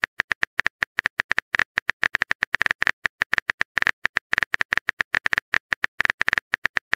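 Typing sound effect from a texting-story app: a rapid, uneven run of keyboard clicks, about eight a second, while the next chat message is being typed.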